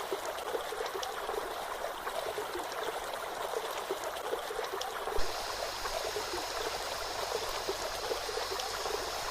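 Running water of a stream splashing steadily, with one brief knock about five seconds in, after which the water sound changes slightly.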